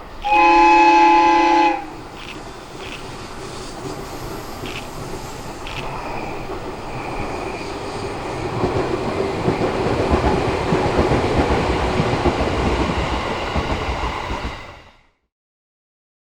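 Air horn of a 211 series electric train sounding one short blast of about a second and a half. Then the train's running noise builds as it passes, and the sound cuts off suddenly near the end.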